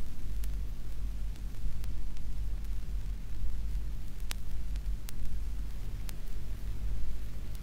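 Background noise of an old recording during a pause in the recitation: a steady low mains hum with hiss and a handful of sharp clicks.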